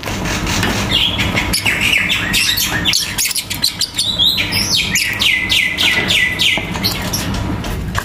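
Lovebirds chattering: a dense string of short, shrill chirps, many sliding down in pitch. About five seconds in they become a quick run of several falling chirps a second.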